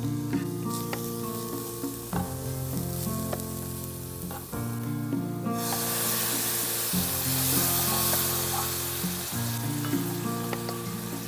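Food sizzling as it fries in hot oil in a pan. The sizzle comes in sharply about halfway through, over background music.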